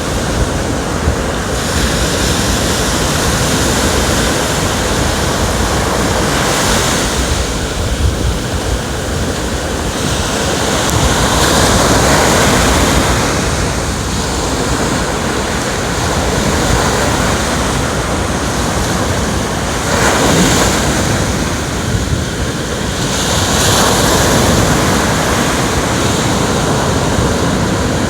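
Ocean waves breaking and washing on the shore, with swells of hissing surf every few seconds, about 7, 12, 20 and 24 seconds in, over a constant low rumble, with some wind on the microphone.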